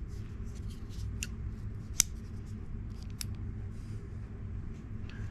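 CJRB Shale folding knife being handled, giving a few sharp metallic clicks; the loudest comes about two seconds in.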